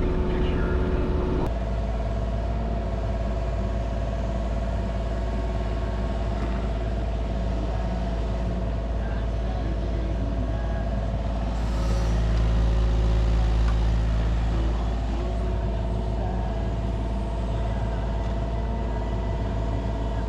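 Diesel engine of a cab-enclosed compact machine running steadily, heard from inside the closed cab. It grows louder about 12 seconds in as it works under load, then settles back about 15 seconds in.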